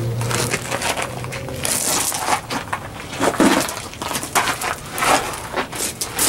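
Footsteps and scuffing of a person walking and crouching under a semi-trailer, a run of irregular clicks and rustles. A low steady hum fades out in the first couple of seconds.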